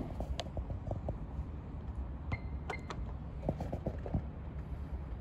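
Clicks of an HP 3458A multimeter's front-panel buttons as they are pressed to step through its error messages, with a short high electronic beep about two and a half seconds in, over a steady low hum.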